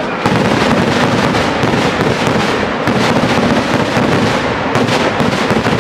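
Kerala temple festival fireworks (vedikettu) going off in a dense, continuous barrage, countless firecracker and shell bangs running together into one unbroken crackle.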